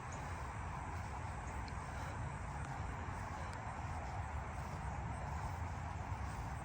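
Steady outdoor background noise with a low, unsteady rumble and no distinct events.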